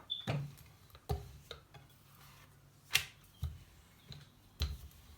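Rolling pin knocking on a board as paratha dough is rolled out: a string of irregular short knocks, about seven in all.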